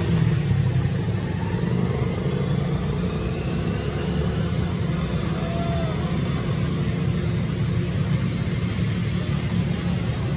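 Steady low rumble of a running motor-vehicle engine, with a faint short call about five seconds in.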